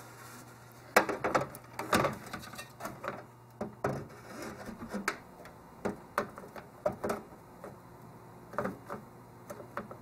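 Scattered light clicks and knocks at irregular intervals as a computer motherboard is set into a PC case and pressed down onto its standoffs. The strongest knocks come about one and two seconds in.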